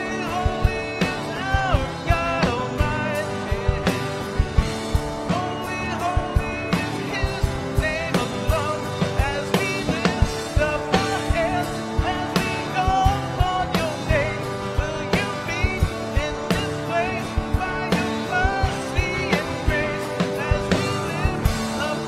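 Live worship band playing a rock-style song: drums keeping a steady beat under strummed guitars, including a Fender Telecaster electric guitar, with a wavering melody line on top.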